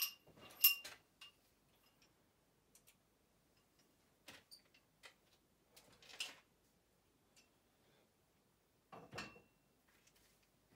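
Scattered faint metallic clinks and knocks with a short ring, two sharp ones at the start and a heavier knock near the end: iron weight plates and a barbell being handled and loaded.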